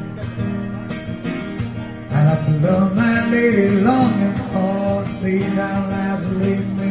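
A man singing while strumming an acoustic guitar, a live street performance. The singing grows louder about two seconds in.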